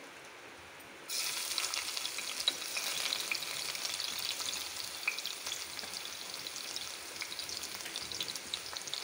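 Crushed garlic cloves dropped into hot oil in a kadhai. The oil bursts into sizzling, crackling frying about a second in and keeps sizzling steadily: the garlic tempering (phodni).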